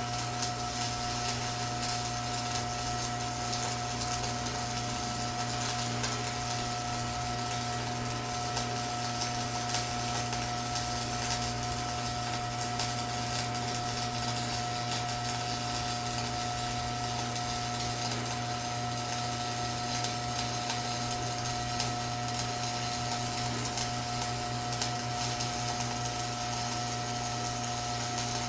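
Stick welding arc crackling steadily, a 6013 rod burning at a low 35 amps on quarter-inch plate, over the steady hum of an old 115-volt AC/DC transformer welding machine.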